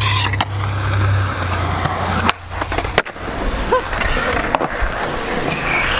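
Skateboard wheels rolling on concrete with a steady low rumble, then sharp wooden board clacks about three seconds in and again a second and a half later.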